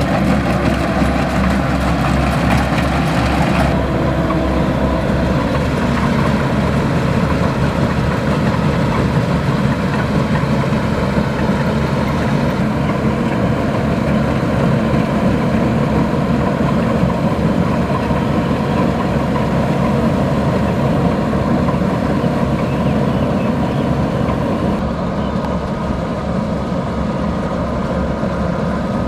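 Kubota DC-105X combine harvester's diesel engine running steadily, with the machine's working clatter.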